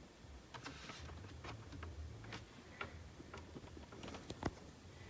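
Faint, irregular clicks and taps of hands handling a laptop and plugging in its HDMI cable, about a dozen small knocks, the loudest a little over four seconds in.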